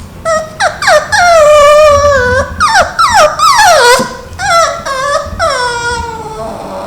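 Beagle puppy whining in a run of high, drawn-out cries that fall in pitch, the longest about a second and a half; she is begging to be let up onto a lap to sleep.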